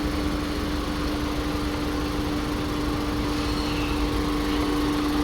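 VW Polo Vivo petrol engine idling roughly and erratically, misfiring on cylinder 2, a fault later traced to a failed spark plug. A steady hum sits over the uneven low beat of the engine.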